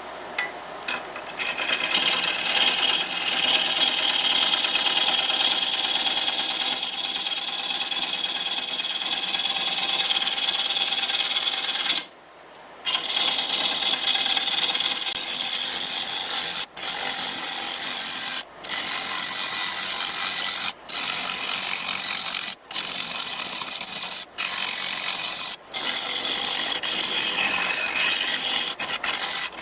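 Lathe turning a wet pecan blank while a turning tool cuts it, giving a steady shearing hiss of wood being cut. The cut drops out for about a second near the middle, then breaks off briefly every couple of seconds as the tool is lifted and set back.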